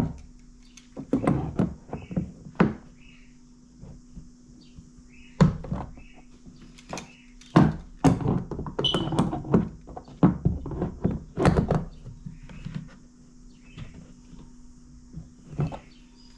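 Irregular knocks and clicks of pliers working a rubber-sealed cable gland tight on a kayak hull, coming in clusters with short pauses between.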